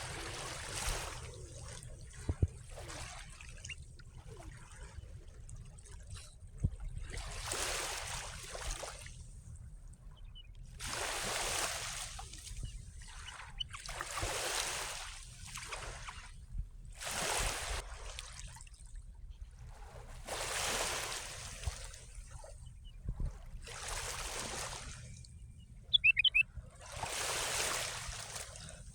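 Small waves of the Sea of Marmara washing in on the shore, one every three seconds or so, each wash swelling and fading, over a steady low rumble. A bird chirps a few times, sharply, near the end.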